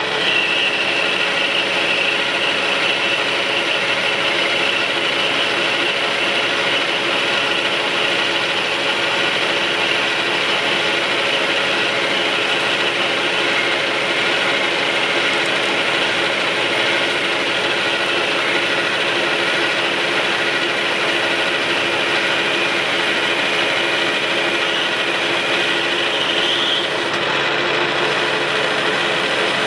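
Metal lathe running, an insert turning tool taking a finishing cut along a steel shaft cut from hydraulic cylinder rod: a steady mechanical hum of several tones under a high, even whine from the cut that rises slightly and stops near the end.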